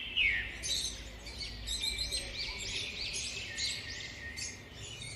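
Many small birds chirping and twittering together, a rapid overlapping run of short, high-pitched calls.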